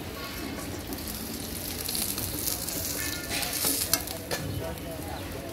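Hot oil sizzling in an iron wok as fried fish pieces are lifted out with a perforated slotted spoon, with a few light taps and scrapes of the spoon against the pan near the end.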